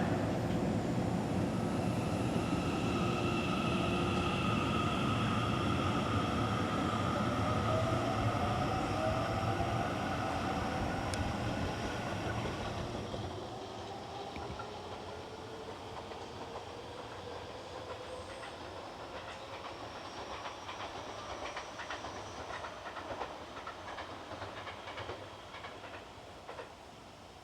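Electric commuter train on the Seibu Ikebukuro Line running past the level crossing: wheel rumble and clatter on the rails, with the whine of its traction motors slowly rising in pitch. The noise drops away about halfway through, and the whine and a few faint clicks trail off.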